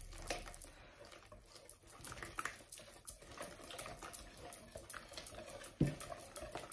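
Wire whisk beating thin pancake batter in a plastic bowl as milk is poured in: a quick run of light clicks and liquid sloshing. A single thump just before the end.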